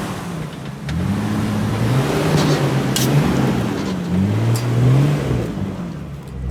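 A 4x4 off-road vehicle's engine revving up and down in several surges as it crawls up a rocky obstacle, with a few sharp knocks mixed in.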